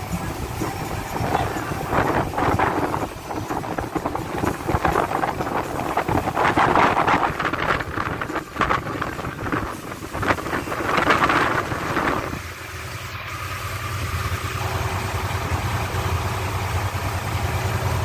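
A fishing boat's engine running steadily under a loud, gusting rush of wind and rough sea for about the first twelve seconds; after that the rush drops away and the engine's low, even hum stands out.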